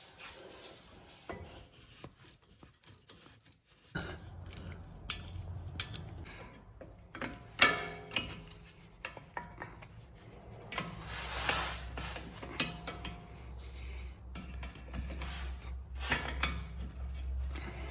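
Rubbing, scraping and a few sharp knocks from hand tools and brake parts being handled, with a low steady hum coming in about four seconds in.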